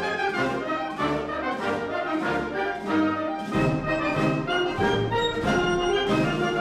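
Instrumental music led by brass, sustained notes moving from one to the next, with a deeper bass joining about halfway through.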